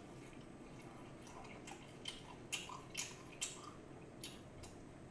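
Crispy seasoned fried chicken crackling as it is chewed and pulled apart by hand: about half a dozen sharp crunches over the middle seconds, over faint room hiss.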